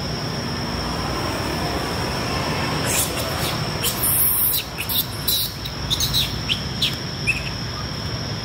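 A run of short, high-pitched chirps and squeaks, starting about three seconds in and loudest about four seconds in, over a steady outdoor background with a constant thin high whine.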